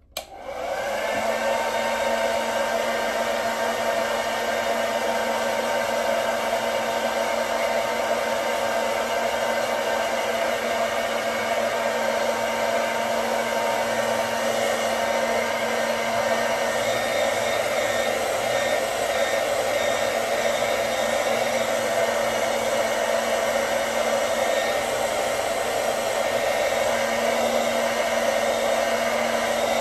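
Handheld hair dryer switched on, spinning up over about a second, then running steadily with a rush of air and a faint steady whine while it is aimed at a wig cap on the head.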